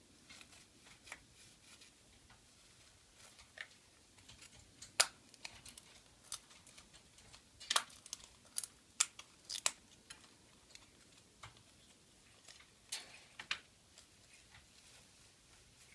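Irregular light clicks and scratches of a wooden popsicle stick held in a sulphur-crested cockatoo's beak as she scratches herself with it. The sharpest clicks come about five seconds in and in a quick cluster a little later.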